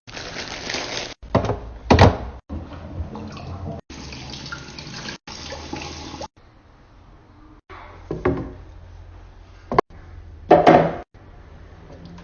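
Running water in short snippets, with a few knocks of containers or fridge items being handled and set down.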